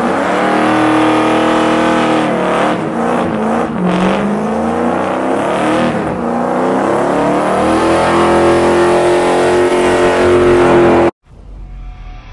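1985 Chevrolet C10 pickup's engine revving hard and held at high revs during a burnout, its rear tires spinning. The pitch wavers up and down and climbs before the sound cuts off suddenly about eleven seconds in.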